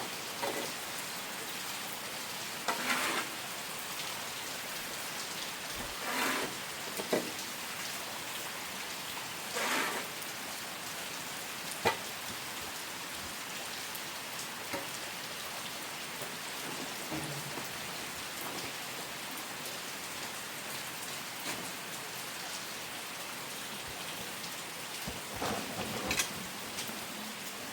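Steady rain falling on surfaces, a continuous even hiss, with a few brief louder sounds now and then and one sharp click about twelve seconds in.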